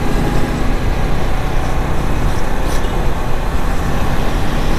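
Riding noise from a Honda CBR150R's single-cylinder engine at about 35 km/h: loud, steady wind rush on the microphone, with the engine running underneath and road traffic around.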